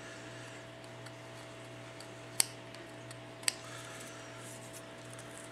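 Two sharp clicks of small hard objects, about a second apart, over a steady low hum.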